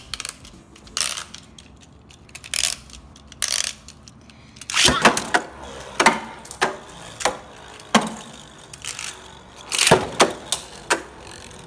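Small plastic clicks as Beyblade Burst tops are fitted to their launchers, then about five seconds in a launch sends Nightmare Longinus and another top into a plastic stadium. The spinning tops clash with sharp plastic clacks, several times over the following seconds.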